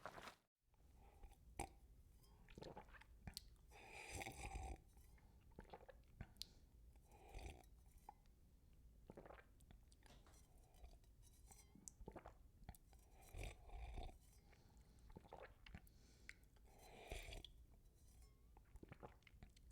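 Foley chewing sound effect: a mouth chewing food, with irregular crunching bites every second or two over a low steady background.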